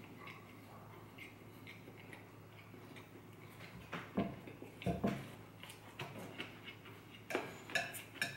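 Someone eating noodles with chopsticks: faint chewing, then a couple of soft thuds about four and five seconds in, and light clicks of chopsticks against the plate near the end.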